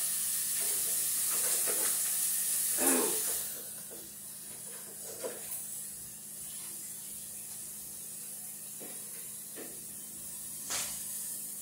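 Tap water running as crab clusters are rinsed, shut off about three and a half seconds in, followed by a few light knocks and clatters from handling them.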